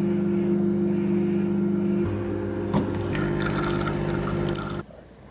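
Espresso machine pump humming steadily as a shot is pulled into a mug. The hum drops in pitch about two seconds in, a click follows shortly after, and a brighter rattle joins before the hum stops abruptly near the end.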